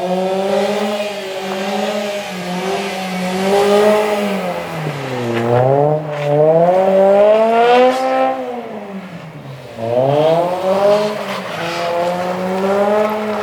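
Car engine revving hard while drifting, its pitch climbing and falling over and over: it drops sharply about five and a half and ten seconds in and reaches its highest about eight seconds in.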